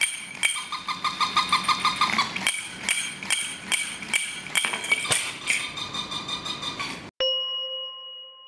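Wind-up toy monkey clashing its small cymbals together in a rapid, steady rhythm. About seven seconds in the clashing cuts off abruptly and a single chime rings out and fades.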